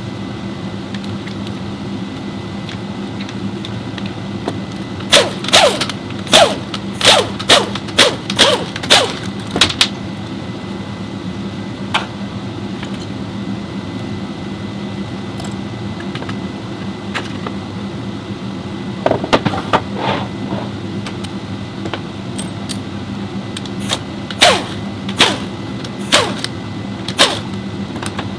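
Steady low mechanical hum with clusters of sharp knocks, several in quick succession about five seconds in, again around the twentieth second, and a few more near the end.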